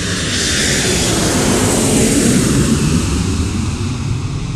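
Jet airliner's engines at high thrust as it rolls down the runway: a loud rumble and hiss that builds to a peak about two seconds in, then slowly fades.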